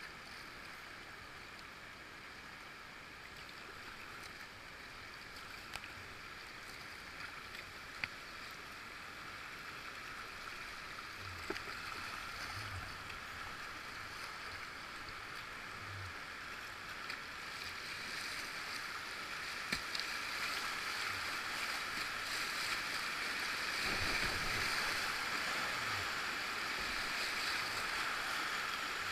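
Whitewater river rapids rushing, steadily growing louder, with a few light knocks.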